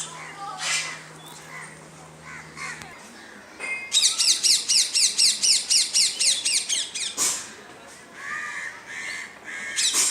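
A bird calling loudly in a quick run of repeated falling high notes, lasting about three seconds and starting about four seconds in. A low steady hum stops about three seconds in.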